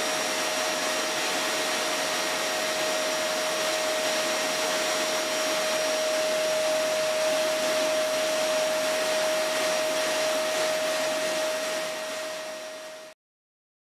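Steady rushing noise with a steady hum, like a small motor or blower running; it fades briefly and cuts off abruptly near the end.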